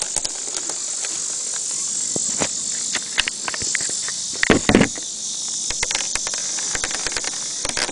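Steady high-pitched insect chorus, with scattered small clicks and rattles from BBs and a foam-and-tape rocket being handled, and a louder rustle about four and a half seconds in.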